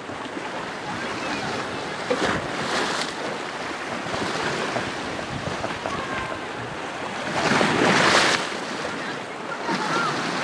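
Sea waves washing and splashing close by, with wind buffeting the microphone; a louder rush of water and wind comes about eight seconds in.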